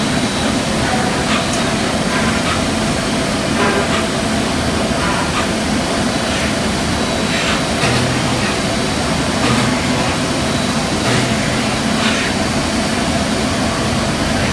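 Weeke Venture 05S CNC router / machining center running, a steady machine drone with a high whine. Short hissing sounds come every second or so through it.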